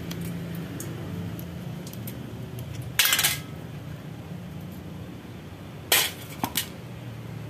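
Metal carburetor parts and a screwdriver clinking against a shallow metal parts pan while a motorcycle carburetor's top cover is unscrewed and taken off: one loud clatter about three seconds in and three quick clinks near the end, over a steady low hum.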